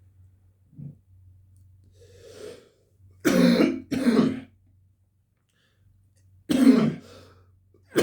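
A man coughing and clearing his throat: a breath in, two hard coughs in quick succession, then another cough a couple of seconds later.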